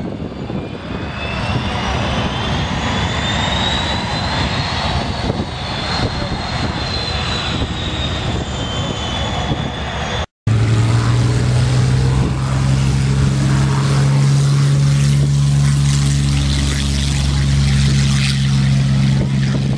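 Piston-engined World War II fighters running on the runway: loud engine and propeller noise with a whine rising over the first few seconds. After a sudden break about halfway, an engine runs with a steady deep drone.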